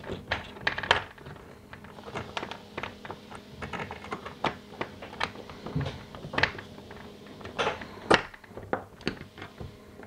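Irregular light metallic clicks and rattles as needle-nose vise grips and a steel cable eye bolt are worked against the chain connector bracket inside a slide-out wall column, freeing the eye bolt.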